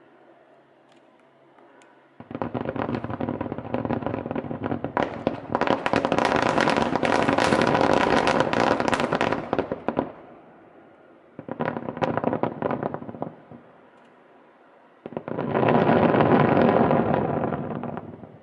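Aerial fireworks going off in rapid barrages, a dense rattle of bangs and crackles. It comes in three waves: a long one of about eight seconds that grows louder, a short one, and a third near the end.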